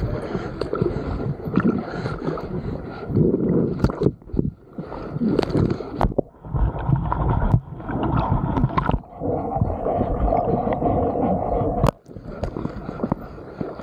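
Lake water splashing and gurgling around a camera dragged along the surface while a person swims. The sound briefly drops away a few times.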